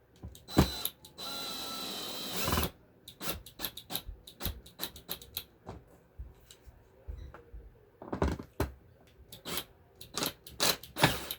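Hyper Tough 20-volt cordless drill running once for about a second and a half, driving a screw into the shop vac's handle. Scattered clicks and knocks follow as the bit and screw are handled.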